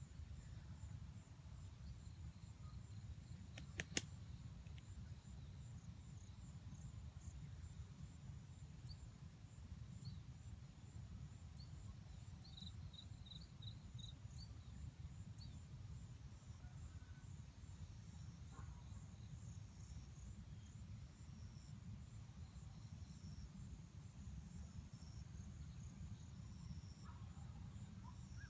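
Faint outdoor ambience: insects drone steadily at a high pitch over a low rumble, with a few short bird chirps in the middle and a sharp double click about four seconds in.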